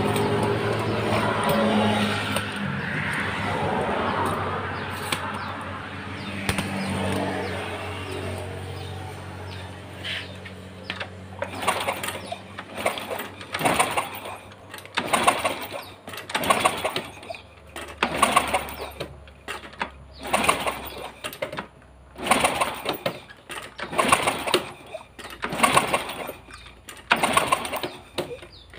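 Small single-cylinder motorcycle engine, a Honda Supra Fit New, running unevenly after being kick-started, fading out about ten seconds in; its ignition source coil is faulty, so it barely keeps running. After that, short sounds repeat about once a second.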